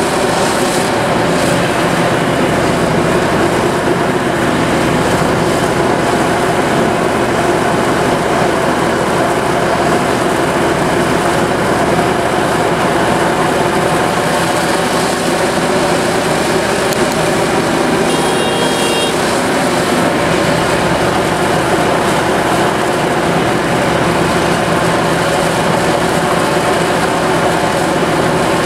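Heavy diesel machinery running steadily as a Liebherr 974B excavator loads articulated dump trucks, with a brief high-pitched tone about two-thirds of the way in.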